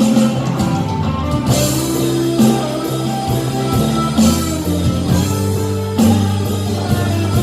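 Instrumental break of a pop ballad: guitar over bass and drums, with no singing.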